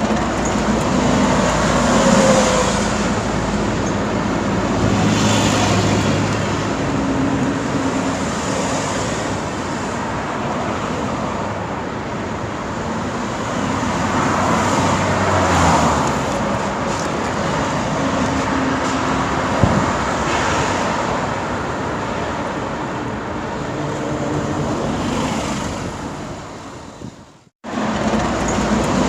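Busy road traffic: a steady stream of vehicles passing, with tyre noise and engine hums swelling and fading as each goes by. Near the end the sound fades, drops out for a moment and then starts again.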